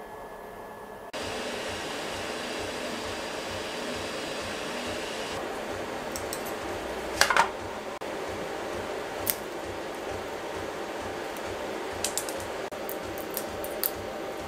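Steady fan whir with several sharp clicks of hard plastic parts being handled and pressed together; the loudest clicks come in a quick cluster about halfway through.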